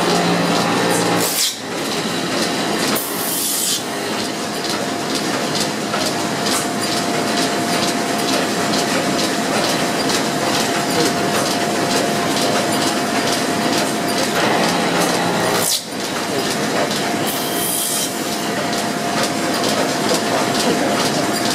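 Belt-driven bobbin-making machinery running with a steady clatter and a constant whine, while the cutters shave the wooden bobbin blanks in a few short hissing bursts, about a second in, around three seconds in and again near the end.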